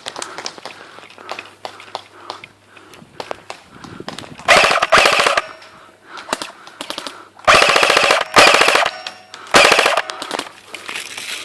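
Airsoft guns firing in full-auto bursts. There are four rapid bursts of clicking shots, the first about four and a half seconds in and the last about nine and a half seconds in, with scattered single shots in between.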